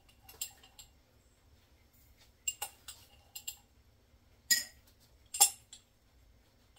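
Metal teaspoon clinking against a glass pint canning jar as dill seed is spooned in: a scatter of light clinks and taps, the two loudest about four and a half and five and a half seconds in.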